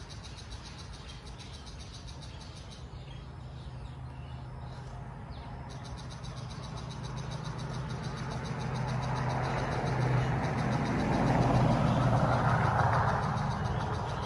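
A vehicle's engine hum passing by. It is steady and low at first, grows steadily louder through the second half, and begins to fade near the end.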